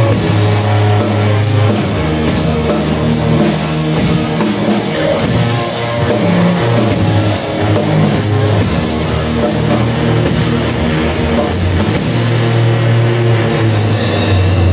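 Live rock band playing: electric guitar, bass guitar and drum kit, loud and steady, with cymbals struck several times a second. The cymbals drop out for a moment near the end, then come back.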